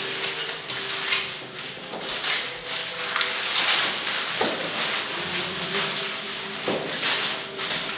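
Paper sticky notes rustling and crinkling as they are scooped up in handfuls and pressed together, in uneven spells with a few sharper crackles.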